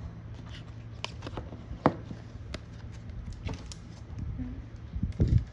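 Scattered light clicks and taps of hard plastic trading-card cases being handled and set down, with one sharper knock about two seconds in and a duller bump near the end, over a steady low hum.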